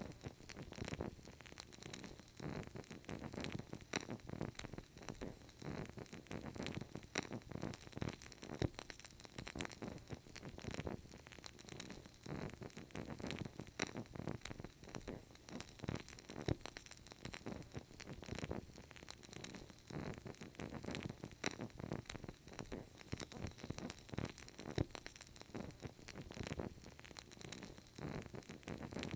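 Burning candle crackling steadily: a dense run of small, irregular ticks and pops.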